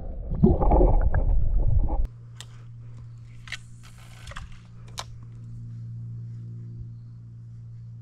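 Muffled rumble and sloshing of water heard through a camera held underwater, cutting off about two seconds in. After that, a quieter steady low hum with a few light clicks.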